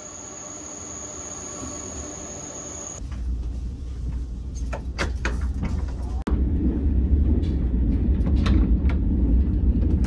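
Passenger train noise. For about three seconds a steady high whine sits over a low rumble. Then comes the low rumble of the moving train heard from inside the carriage, louder from about six seconds in, with a few light clicks.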